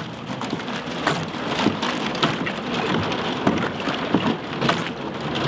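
Thin skim ice on the water breaking against a boat's hull and a paddle: a dense, continuous crackling made of many small sharp clicks.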